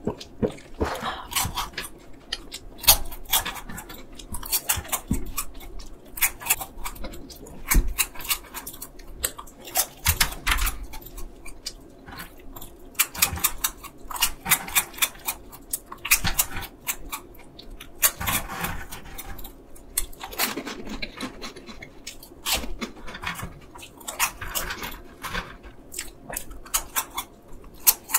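Close-up crunching and chewing of No Brand peanut caramel corn puffs: many crisp, irregular crunches one after another as the airy snacks are bitten and chewed.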